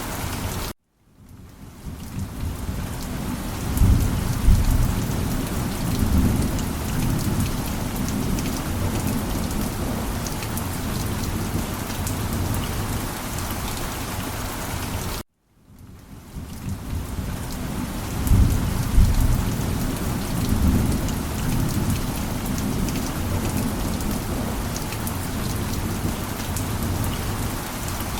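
Steady heavy rain with low rolling thunder that swells twice, about four seconds in and again near the middle. The sound cuts out to near silence for a moment about a second in and again halfway through, then fades back up: the same stretch of rainstorm is looped.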